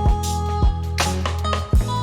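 Background music with a steady beat: a sustained bass line and kick drum about twice a second.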